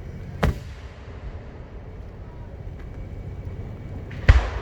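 Two aerial firework shells bursting about four seconds apart, each a sharp bang with a trailing echo; the second is the louder.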